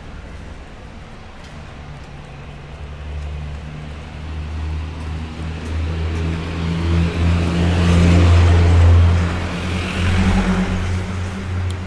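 A motor vehicle's engine running close by with a low steady hum. It grows louder over the first eight seconds or so, then eases off a little.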